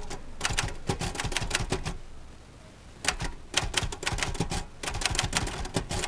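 Royal manual typewriter being typed on: a quick run of key strikes, a pause of about a second, then another quick run of strikes.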